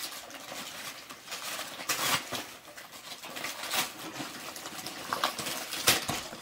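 Wrapping paper rustling and tearing as a present is opened, in several short, sharp bursts, the loudest near the end.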